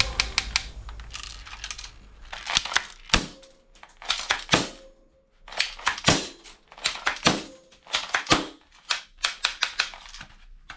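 Plastic clicks and clacks of a toy rifle being handled and its parts worked, coming in irregular clusters with short pauses between them.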